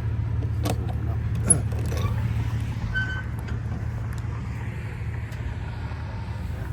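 A vehicle engine idling steadily, with a few light clicks and clinks over it, the sharpest about one and a half seconds in.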